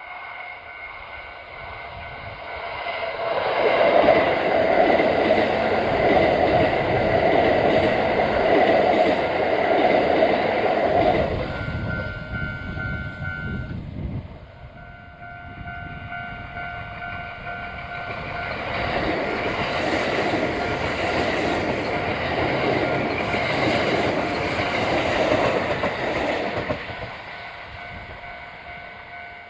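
Kintetsu electric trains passing a level crossing twice, each pass a loud rush of wheel and rail noise: the first from about 3 to 11 seconds in, the second from about 15 to 27 seconds. The crossing's warning bell rings steadily throughout.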